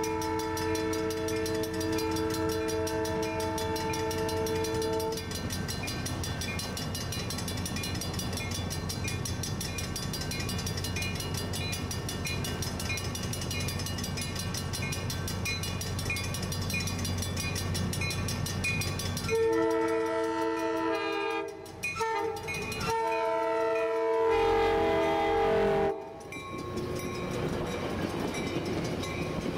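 Commuter train horn sounding a long chord as the Coaster train approaches a grade crossing, over the train's steady rumble and the repeating ding of the crossing bell. About twenty seconds in the horn sounds again, long, short, then long, the standard grade-crossing signal, and the last blast drops in pitch as the cab car passes close.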